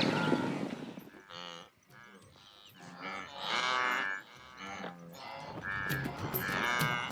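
Blue wildebeest herd calling, a run of nasal lowing grunts one after another and overlapping. A rushing noise fades out in the first second before the calls begin.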